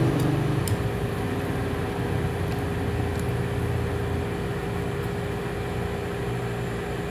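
A steady mechanical hum with one constant tone, with a few faint clicks from chewing.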